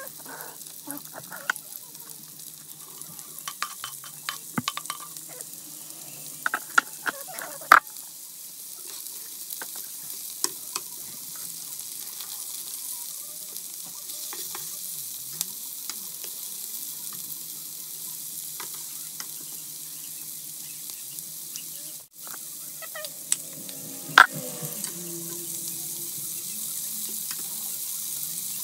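Sliced onion, carrot and capsicum sizzling in a hot nonstick frying pan while a wooden spatula stirs them, scraping and knocking against the pan. There are scattered sharp taps, the loudest about 8 seconds in and again about 24 seconds in, over a steady frying hiss that grows a little louder towards the end.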